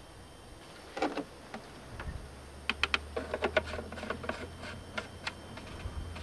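Light clicks and knocks of a plastic oil funnel being pulled from the engine's oil filler and handled under the hood, with a quick run of clicks in the middle, over a low steady hum.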